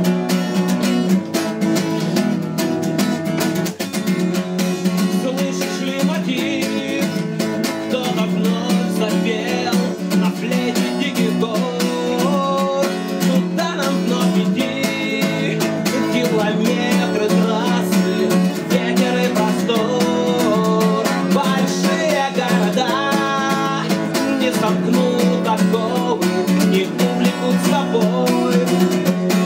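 Acoustic guitar strummed steadily, with a man's singing voice joining in after about five seconds.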